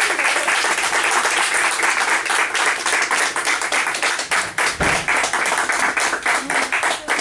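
A small group of people applauding, with many hands clapping densely and steadily.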